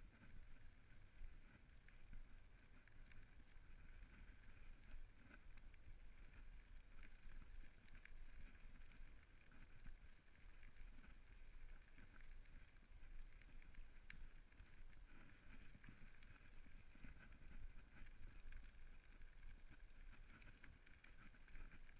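Faint, steady rumble of bicycle tyres rolling along a gravel path, with small scattered crunching ticks from the grit.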